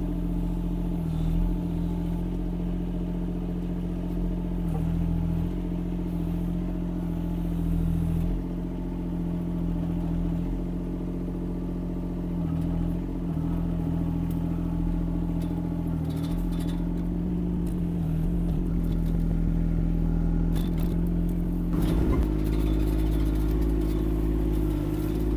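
Yanmar diesel engine of a Kymron XH20D mini excavator running steadily, with a few clanks, its note growing heavier about three seconds before the end as the machine takes on load.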